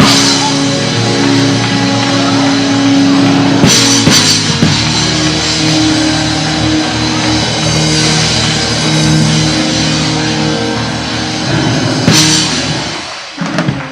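Live band music with drum kit and held keyboard or organ chords, cymbal crashes at the start, about four seconds in and about twelve seconds in, dying down near the end.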